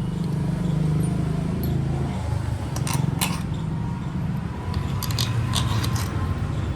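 Light metal clinks and scrapes of tools and parts, with a few sharp clinks about three seconds in and again between five and six seconds, over a steady low machine hum.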